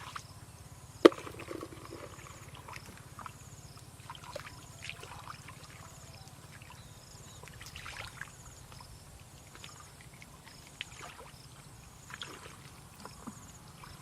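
Water trickling and sloshing with scattered small clicks and knocks, and one sharp knock about a second in, over a steady low hum.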